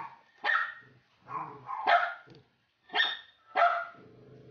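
A dog barking about five times in short, separate barks spread across a few seconds.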